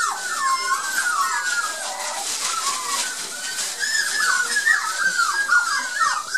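Six-week-old Border Collie puppies whining, a near-continuous run of short high-pitched cries that slide up and down in pitch, at times overlapping.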